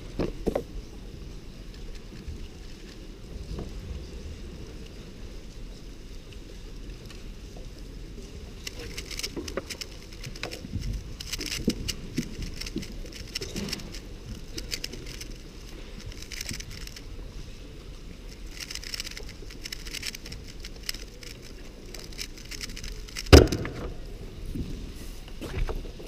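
Gan Air SM speedcube being turned rapidly during a blindfolded solve: quick runs of clicking and clacking plastic layer turns through the middle. A few seconds before the end comes one sharp slap as the hands come down on the stackmat timer to stop it.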